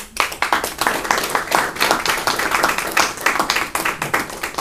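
A group of people applauding, many overlapping hand claps that start suddenly.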